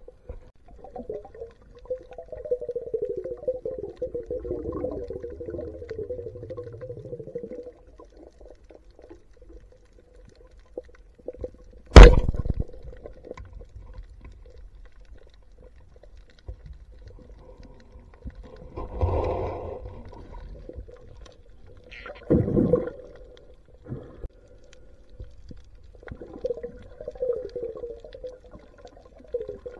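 Underwater: a speargun fires with one sharp, loud crack about twelve seconds in, followed by a short wash of churned water. Shorter whooshing bursts come later, and wavering, gliding tones sound near the start and again near the end.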